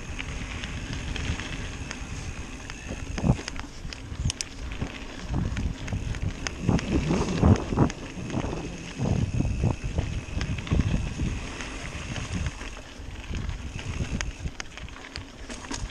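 Mountain bike riding over rough singletrack: tyres on dirt with irregular knocks and rattles over bumps, and wind on the microphone.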